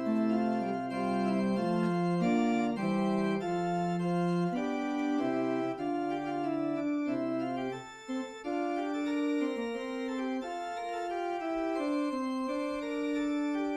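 Church organ playing the postlude at the close of the service: held chords that change every second or so, with the low bass notes dropping out about halfway through.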